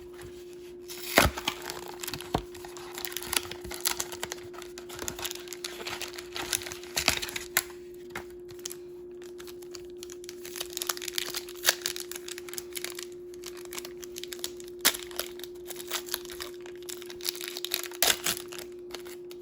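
A trading card pack's wrapper being opened by hand and the cards handled: irregular crinkling and sharp crackles, the loudest about a second in, over a steady faint hum.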